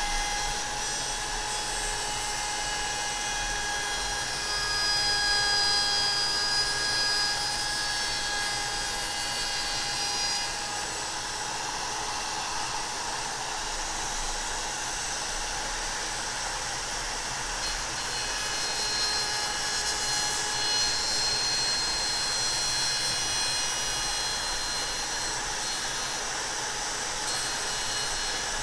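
Router motor spinning a flush-trim laminate bit at high speed, trimming the edge of a wooden pattern flush to a template: a steady high-pitched whine with cutting noise that swells slightly at times.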